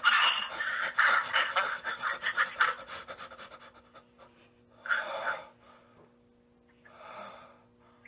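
A young man panting heavily into a phone held against his mouth: quick, loud breaths for about the first three seconds that trail off, then two single long breaths about five and seven seconds in.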